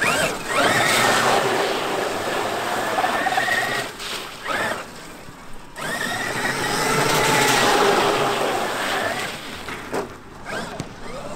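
Brushless electric motor of a Traxxas X-Maxx RC monster truck whining, its pitch rising and falling as the throttle is worked, with short drops to near idle about four and five seconds in.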